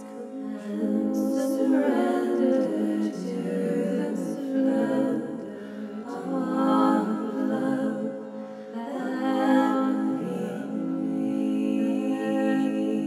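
A woman singing long wordless tones that glide up and down in pitch, over a steady held drone.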